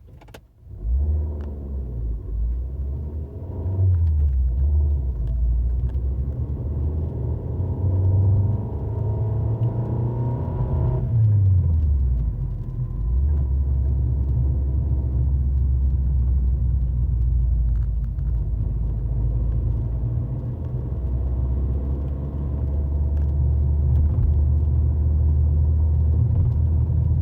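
Fiat 500L's 1.4-litre 95 hp petrol four-cylinder engine accelerating with a low drone. The engine note climbs and drops back twice, about four and twelve seconds in, as at gear changes, then holds steady.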